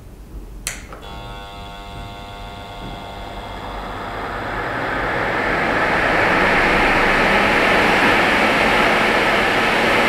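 A click as a triac electronic fan speed controller is switched on, then an inline duct fan's motor starts up with a steady hum of several tones. Rushing air builds over a few seconds as the fan comes up to speed and then holds steady. The chopped, non-sine voltage from the triac controller gives the motor a bit of extra hum.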